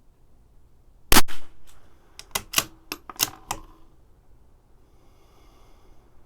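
A single .22 LR shot from a CZ 457 bolt-action rifle about a second in, followed by a quick run of sharp metallic clicks as the bolt is worked to eject the case and chamber the next round.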